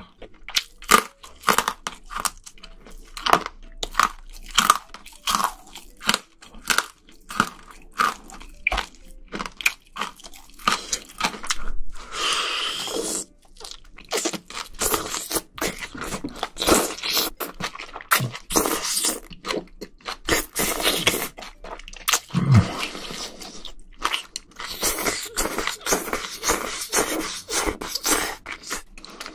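Close-miked mouth sounds of eating spicy seafood stew: wet chewing and crunching bites of octopus, shellfish and noodles, with a longer slurp of noodles about twelve seconds in.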